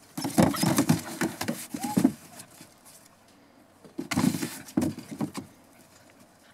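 Border Collie puppies' paws scrabbling and knocking on a hollow plastic toddler slide, in two bursts of clatter: one at the start and one about four seconds in.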